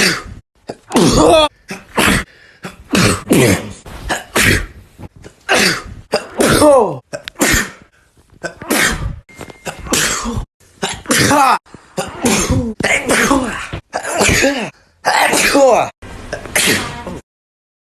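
A rapid series of human sneezes, about twenty short bursts one after another. Many have a voiced part that falls in pitch.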